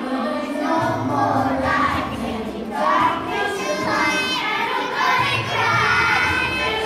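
A class of preschool children singing together as a group, voices bright and a little ragged in unison.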